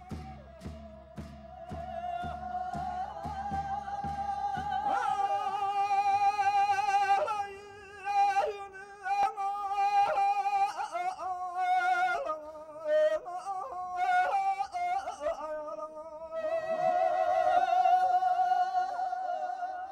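Tibetan lhamo opera singing: a single high voice holding long notes with a quivering, ornamented pitch. For the first five seconds a steady percussion beat, about two strokes a second, runs underneath.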